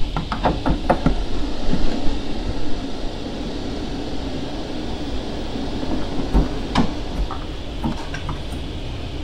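MaxxFan Deluxe 6401K roof vent fan running with a steady whir. A few light clicks and knocks come from a hand working at the fan's housing and lid knob, several in the first two seconds and more near the end.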